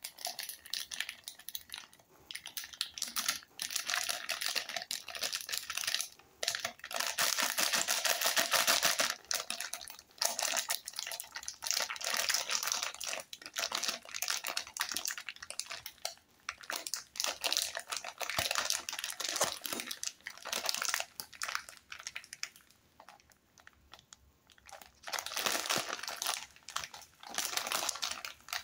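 Plastic wrapper of a Parle-G Gold biscuit packet crinkling and crackling as it is handled and turned over in the hands, in uneven bursts, loudest about a third of the way in, with a quieter spell a few seconds before the end.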